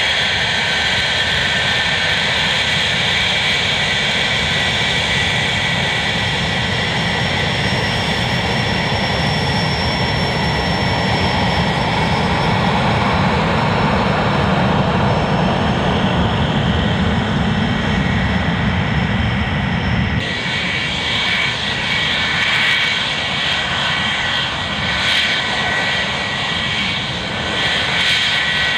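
English Electric Lightning F6's twin Rolls-Royce Avon turbojets running as the jet taxies: a steady high whine over a low rumble. About two-thirds of the way through, the sound changes suddenly: the low rumble drops away while the whine carries on.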